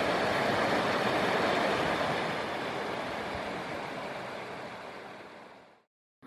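Steady rushing noise that begins to fade about two seconds in and dies away to silence near the end.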